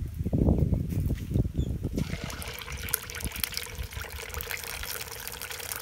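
Masala-coated carp pieces sizzling and crackling steadily in hot oil in a clay pot, starting abruptly about two seconds in.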